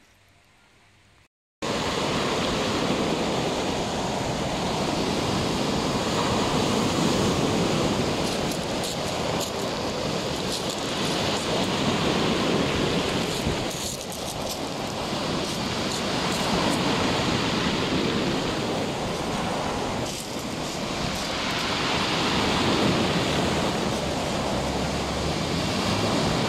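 Sea surf breaking on a beach: a steady rush of waves that swells and eases every few seconds. It starts suddenly after a short quiet moment at the beginning.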